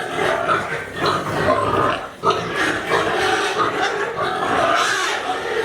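A group of piglets squealing and grunting together while feeding, many voices overlapping without a break except for a brief lull about two seconds in.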